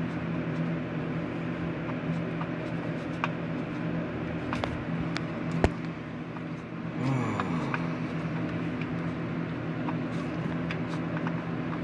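A steady low mechanical hum runs underneath a few light metallic clicks and one sharp knock a little past halfway, as hand tools work at a car's starter motor mounting bolts.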